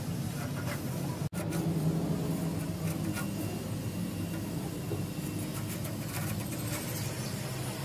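A steady low hum, with faint light ticks and scrapes from a thin wire rod being poked down into the tubes of a truck radiator core to clear the blocked passages.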